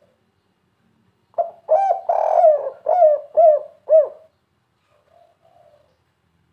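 Spotted dove cooing a 'kuk 3' call: a couple of quick notes, then a long, loud coo, then three short, separate coos. Fainter, softer coos come just before and after the call.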